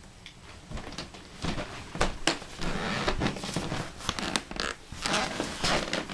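Footsteps on a hardwood floor close by, with clothing rustling: irregular knocks and scuffs, louder from about a second and a half in.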